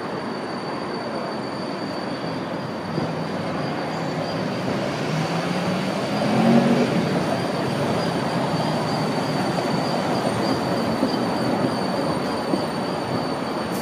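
Vienna ULF ultra-low-floor tram rolling slowly past on a curve. Its running noise swells to its loudest about six to seven seconds in, as it passes closest, with a steady high-pitched whine over it.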